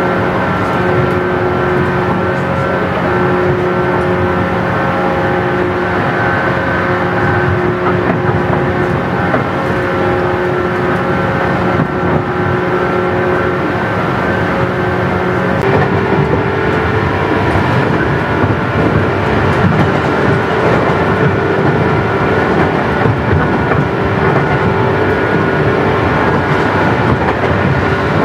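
Running sound of a 117 series 100-bandai electric multiple unit heard from inside the car: the whine of its DC traction motors and gearing over steady wheel and rail noise. The whine holds a steady pitch, then shifts abruptly to a new pitch about halfway through.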